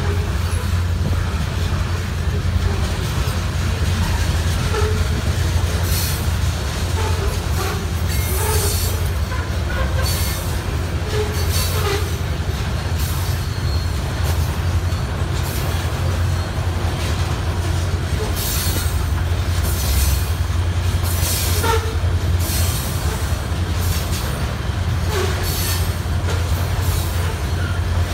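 Covered hopper cars of a freight train rolling past close by: a steady low rumble from the wheels on the rails, with short squeals and clicks from the wheels coming in clusters.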